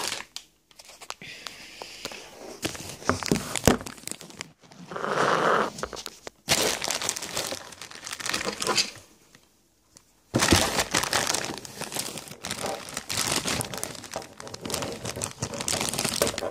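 Plastic parts bags from a toy set crinkling and rustling as they are handled, in irregular bursts, with a brief pause about ten seconds in.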